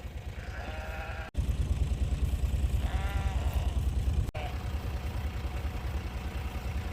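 Katahdin sheep bleating twice, a short call about half a second in and a longer wavering one about three seconds in, over the low steady putter of an idling vehicle engine.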